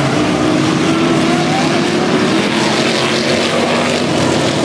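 Figure-8 race cars' engines running loud at speed around the track, their pitch sliding up and down as the cars pass.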